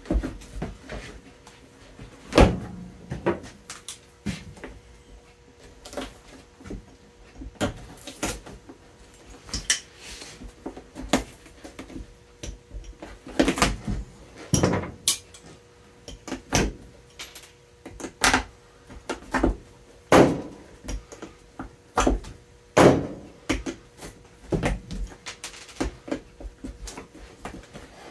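Leather work boot being taken apart by hand and with pliers: irregular sharp snaps, creaks and tearing as the sole is pulled and pried away, a few of them loud, over a faint steady hum.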